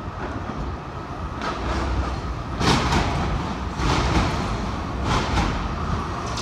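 B2-class tram approaching along street track: a low rumble that grows as it draws near, with four brief rushes of noise along the way.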